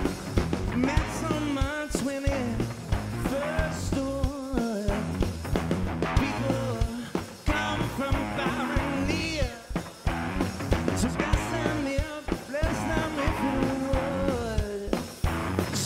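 Rock band playing live: drums, electric guitar, bass and keyboards, with a male lead vocal sung over them.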